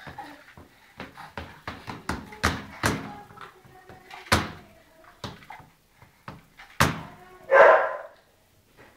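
Irregular knocks and thumps from a baby's doorway jumper as the baby bounces and a toddler pushes the seat. A child gives one short, loud shriek about three-quarters of the way through.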